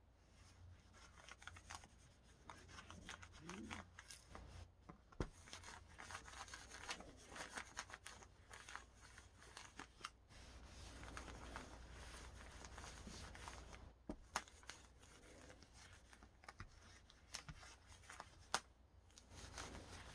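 Faint scratchy rubbing of a hobby covering iron sliding over the plastic film covering of a foam RC elevator as the covering is heat-shrunk tight, with a few sharp clicks along the way.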